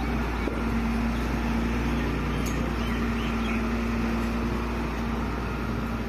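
Diesel engine of a Case 621F wheel loader running steadily with a low rumble and a constant hum, as the machine holds its bucket of snow up over a dump truck.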